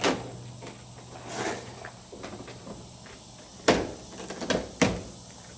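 A few sharp knocks and clunks of hand work on a truck door, with the loudest two about a second apart near the end.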